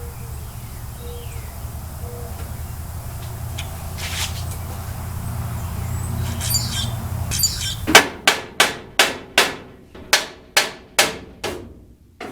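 A steady low hum with a few faint clicks, then from about eight seconds in a run of sharp hammer blows on metal, about three a second, each ringing briefly. The blows are knocking at a part that is wedged on.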